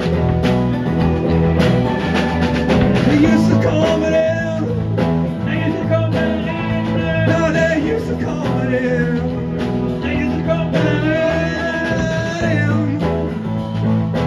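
Blues-rock band playing an instrumental passage: guitars over a steady drum beat, with a wavering lead melody coming in twice.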